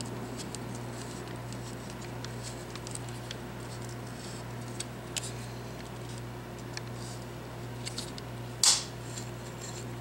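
Small clicks and ticks of a precision screwdriver turning tiny screws in a gaming mouse's plastic housing, with one louder short scrape near the end, over a steady low hum.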